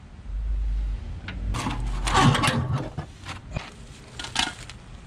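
Metal tire-changing tools clanking and rattling as they are handled, with the busiest clatter about two seconds in and a few lighter knocks after. A low rumble runs under the first second or so.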